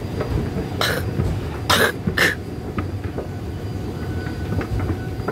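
A person coughs three times, the last two close together, over a steady low hum.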